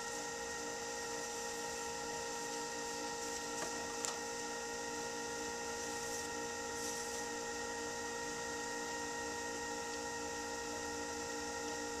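Electric potter's wheel motor running at steady speed, a hum with a whine of several steady tones, while wet clay turns under the hands. A small click about four seconds in.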